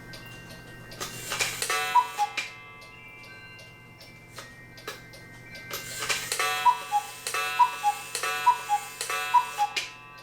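Black Forest cuckoo clock ticking, then striking: a gong strike with a two-note cuckoo call about two seconds in, and after a pause four more gong strikes, each with its cuckoo call, about one a second. A snapping sound can be heard in the works, which the owner cannot place and likens to an electric arc.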